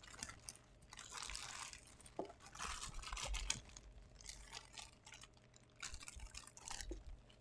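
A knife cutting open a product box's cardboard and packaging, with faint, irregular scraping and crackling in several short stretches.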